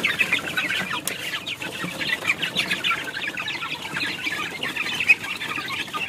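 A flock of young chickens peeping and clucking as they crowd a feeder, many short high calls overlapping without a break. A sharp click comes about a second in, and a brief, louder knock about five seconds in.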